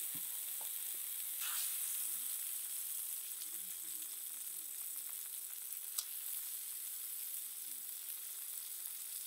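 Striploin steak and grilling cheese sizzling in a cast-iron skillet, a steady fine hiss, with one sharp click about six seconds in.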